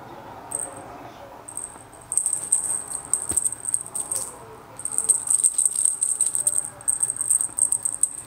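Small jingle bell on a cat wand toy jingling in quick, irregular shakes as a kitten bats at it, starting about two seconds in, with a brief pause partway through.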